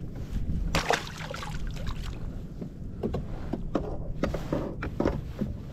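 Water slapping against a plastic sit-on-top kayak hull under a steady wind-and-water rumble, with several short splashes and knocks about one, three, four and five seconds in.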